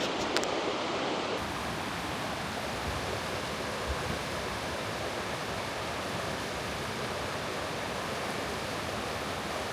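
Steady rushing of a mountain stream's flowing water, an even hiss with no change.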